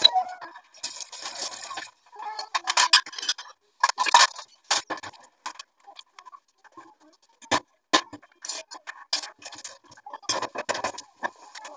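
Dishes, a glass and a plastic dish rack being handled and cleared from a stainless steel kitchen sink: irregular clinks, knocks and short scrapes.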